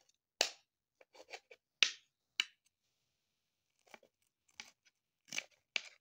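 A knife sawing through baked bread slices with a crisp crust and a grated-potato and cheese topping: a string of short crunching scrapes, with a quiet gap in the middle.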